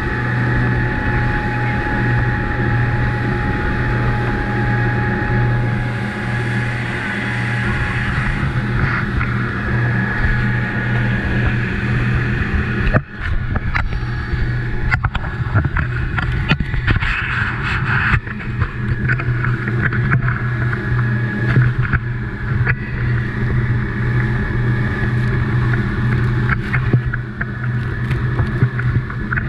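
Dive boat's engine running steadily at cruising speed, with wind and water rushing past the hull. A single knock about halfway through, followed by scattered crackling.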